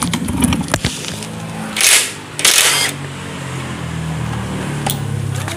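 Cordless impact wrench with a 14 mm impact socket loosening a motorcycle engine-mount nut: two short bursts of hammering about two seconds in, then the motor runs steadily as the nut spins off.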